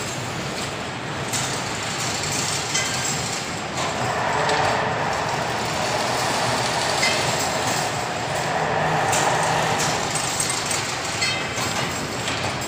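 Fully automatic single-wire chain link fence weaving machine running: a steady mechanical clatter with scattered clicks.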